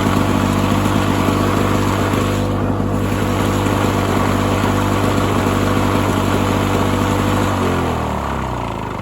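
Lawn Boy 5247 mower engine running steadily, then shut off about seven and a half seconds in, its pitch falling as it slows to a stop.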